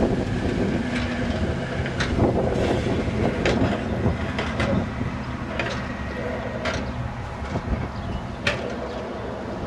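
Ford hi-rail pickup truck rolling along railroad track on its guide wheels, its engine running with a steady rumble, and sharp irregular clicks about once a second as the wheels cross rail joints and switch points.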